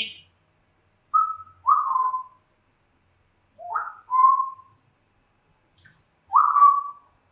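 African grey parrot whistling: three short phrases of clear whistled notes, each sliding up and then holding a steady pitch.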